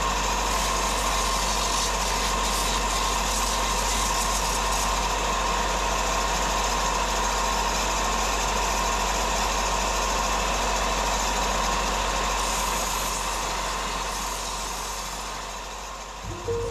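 An electric power tool motor running steadily: a constant whine over an even rushing noise, fading out near the end.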